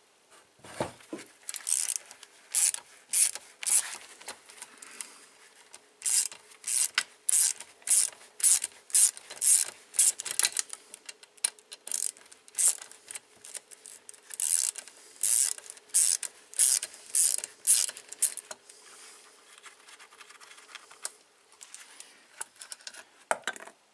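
Hand ratchet wrench clicking in runs of quick strokes, stopping and starting, as a bolt is worked inside a 125cc motorcycle engine's crankcase, over a faint steady hum.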